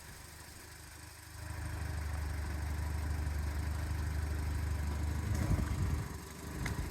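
Audi TT roadster's power soft top being operated with the engine idling: its motor sets up a steady low hum about a second in that lasts roughly four seconds, wavers briefly, and ends with a sharp click near the end.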